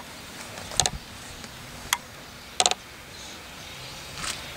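PKP class Ol49 steam locomotive approaching slowly over station points: a few short, sharp clicks about a second apart, then a soft hiss of steam rising near the end.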